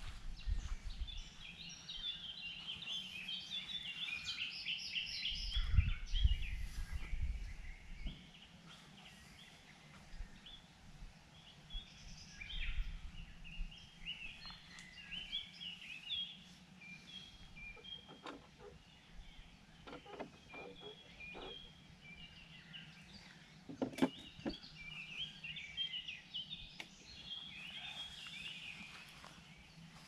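Several birds singing and chirping in the riverside trees, busiest in the first few seconds and again near the end. A low rumble runs under the first several seconds, and a few sharp knocks and rattles of fishing gear being handled come in the second half, the sharpest about three-quarters of the way through.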